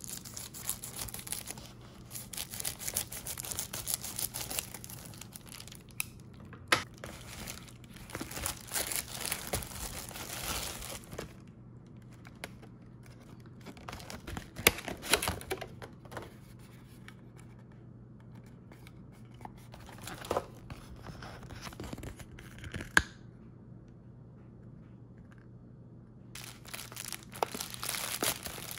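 Crinkly packaging material being handled, crumpled and torn in irregular bursts, with a few sharp clicks and taps, over a steady low electrical hum.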